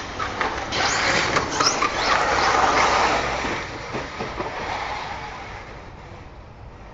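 RC buggy driving over a dirt track, its tyres and chassis scrabbling and crackling over the loose dirt. It gets louder as the buggy passes close, then fades away after about five seconds.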